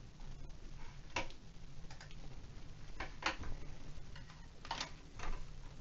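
A handful of faint, irregularly spaced clicks and ticks over a low steady hum.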